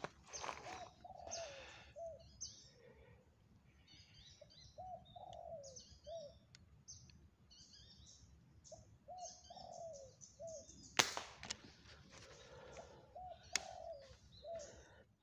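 Spotted doves cooing in short repeated phrases, with smaller birds chirping high above them. About eleven seconds in comes a single sharp crack, the shot of a Sharp Pegasus pump air rifle, and a smaller click follows a couple of seconds later.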